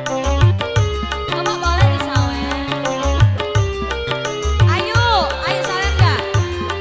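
Live dangdut band music: hand drums and bass keep a steady beat under held keyboard notes. A melody line with sliding, bending pitch comes in twice.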